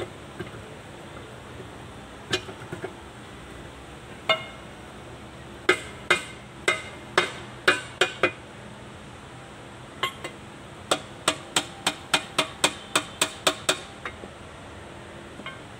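A hammer tapping metal on a tractor's rear axle hub. A few single sharp metallic knocks come first, then a run of about two knocks a second, and after a short pause a faster run of about three a second.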